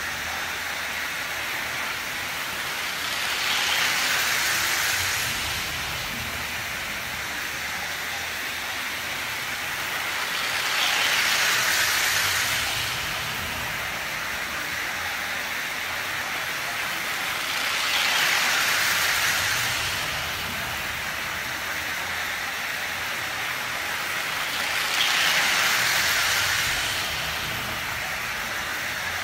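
Lionel Union Pacific 2023 model train running on its three-rail track, a steady rolling rumble and hiss of wheels and motor. It swells louder four times, about seven seconds apart, as the train comes round close each lap.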